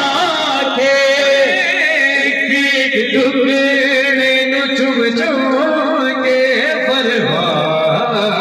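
A man chants a noha, the Shia mourning lament, into a microphone, with men in the crowd singing along. The voices hold long notes that waver and bend, with no instruments.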